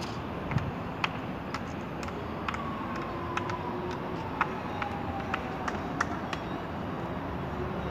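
City ambience: steady distant traffic noise, with scattered sharp clicks and a faint tone that slowly falls in pitch over a few seconds in the middle.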